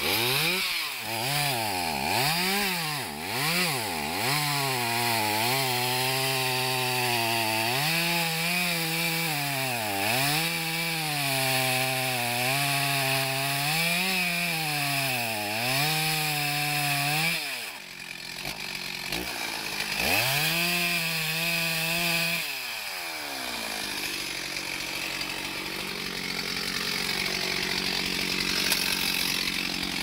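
Stihl two-stroke chainsaw cutting through a log. The engine pitch rises and dips again and again as the chain bites into the wood. It drops away briefly about 18 seconds in, revs again, and settles to a lower, steadier running about 23 seconds in.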